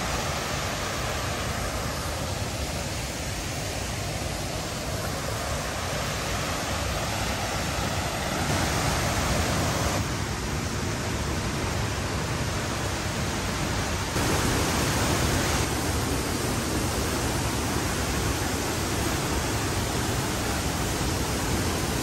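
Steady rushing of a waterfall, a constant broad white-noise roar whose level steps up and down a few times.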